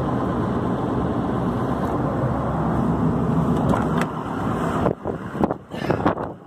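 Steady rumbling noise of a vehicle driving. In the last two seconds it turns choppy, broken by gusts of wind on the microphone.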